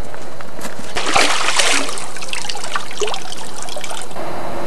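Water splashing, loudest about a second in, then trickling and dripping with small knocks as it dies away over the next few seconds.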